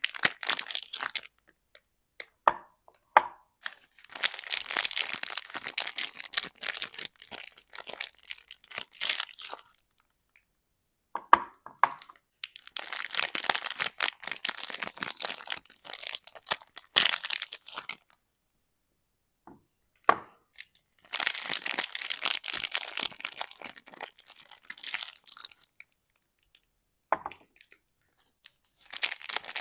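Soap bar wrappers being torn open and crinkled by hand, in three long spells of crackly rustling with pauses and a few light taps between.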